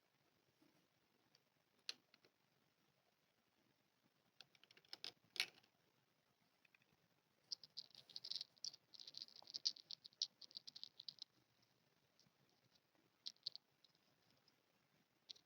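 Small plastic miniature toy pieces clicking and rattling as they are handled: a sharp click about two seconds in, a short cluster of clicks near five seconds, a dense run of rattling clicks lasting about four seconds through the middle, and a few more clicks near the end.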